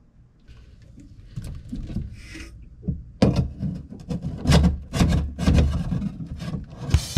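Handling noise as a waste-tank sending unit's metal tube is fitted back into a plastic holding tank among the hoses. Quiet rubbing and rustling come first, then from about three seconds in, a run of irregular knocks and clicks as the tube and fittings are pushed into place.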